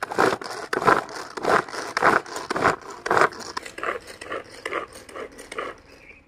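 Hand-pull cord food chopper: each pull of the cord gives a quick whirring zip as the blades spin through vegetables in the plastic jar. The pulls come about twice a second and grow quieter over the last couple of seconds.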